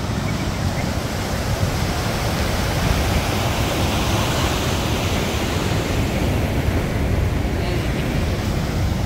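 Ocean surf breaking and churning into whitewater, a steady rush of waves heaviest in a low rumble.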